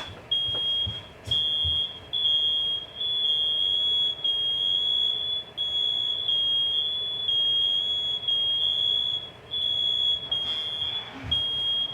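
Household smoke alarm sounding a loud, piercing high-pitched tone, broken now and then by short gaps. It is a nuisance alarm set off by the nearby stove with no smoke present.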